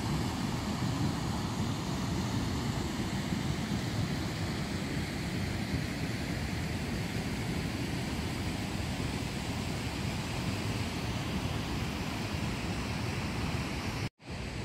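Mountain river water rushing over rocks and small rapids: a steady, unbroken noise of running water. It cuts out for an instant near the end.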